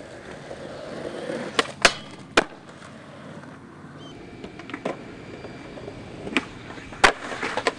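Skateboard wheels rolling on concrete, then sharp clacks of the board striking the ground: three close together, and another near the end.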